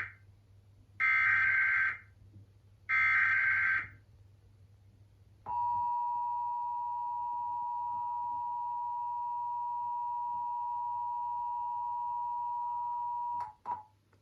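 Emergency Alert System test signal: the last two of three SAME header data bursts, each a one-second electronic warble, then after a short gap the EAS two-tone attention signal (853 and 960 Hz together) held steady for about eight seconds, cut off near the end with a brief click.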